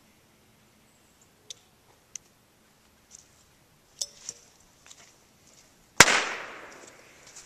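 M83 smoke grenade going off: a few light clicks while it is handled, then about six seconds in a single sharp pop followed by a hissing rush that dies down over a second or so as the white smoke starts to pour out.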